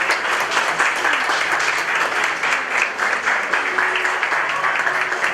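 Wedding guests applauding: many hands clapping at once, steady throughout.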